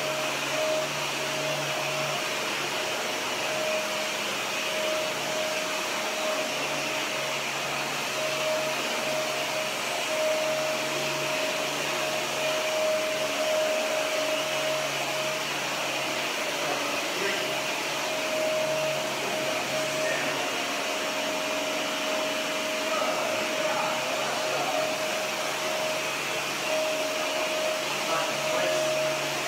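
Upright bagless vacuum cleaner running steadily while being pushed back and forth over a bare concrete floor: a constant motor whine over an even rush of air.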